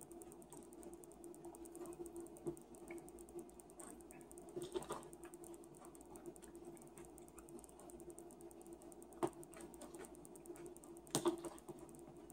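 Spoon clinking against a bowl of cereal and milk a few times as someone eats, the loudest clink near the end, over a faint steady hum.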